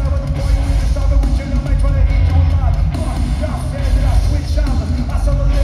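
Live rock band playing loudly through an arena sound system, with drums and a heavy bass low end.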